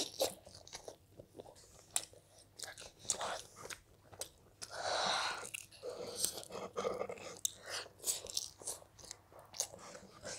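Close-miked biting and chewing of a crispy-skinned air-fried chicken drumstick: irregular wet mouth smacks and small crunches, with one longer hissing sound about halfway through.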